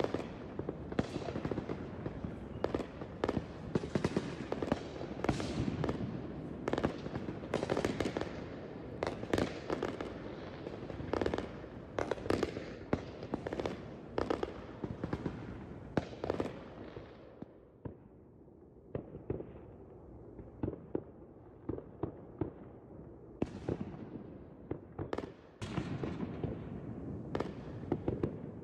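Consumer fireworks going off: a rapid string of bangs, pops and crackles. It thins out to scattered pops around the middle and picks up again near the end.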